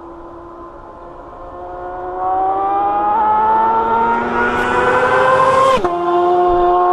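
Suzuki GSX-R750 inline-four with a full Akrapovic exhaust accelerating hard through a gear, its pitch climbing steadily, then dropping sharply as it shifts up near the end and pulling on in the next gear.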